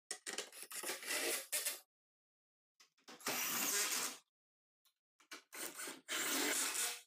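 Cordless drill driving screws into a plastic CRT television cabinet, in three bursts of one to two seconds each.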